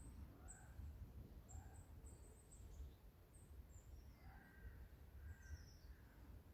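Faint birdsong from several small birds: many short, very high, thin chirps, with some lower calls in the second half, over a steady low rumble.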